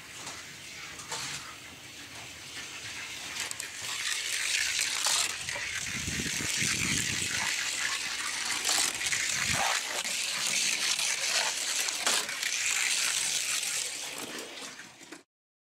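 Hot Wheels die-cast Ferrari Testarossa rolling down a gravity race track: a steady hiss of small wheels on the track that builds over the first few seconds, with clicks and knocks at the track joints and a brief low rumble about halfway. It cuts off suddenly near the end.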